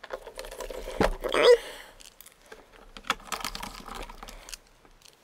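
Small Phillips screwdriver driving screws into a laptop's metal internal cover plate: light clicks and scraping of the bit in the screw heads, with a sharper knock about a second in.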